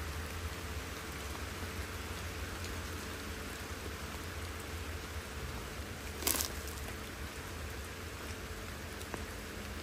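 Steady rain falling, an even hiss, with one short sharp noise about six seconds in.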